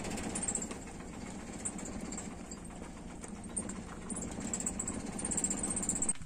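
A pot of fish soup boiling hard over a wood fire: a steady bubbling rumble with fine crackling, which cuts off suddenly near the end.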